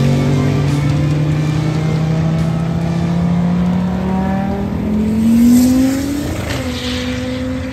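Turbocharged GM Vortec 3500 inline-five engine at full throttle as a drag car launches and accelerates down the strip. The engine note climbs steadily in pitch and is loudest about five and a half seconds in, then steps down a little and fades as the car pulls away.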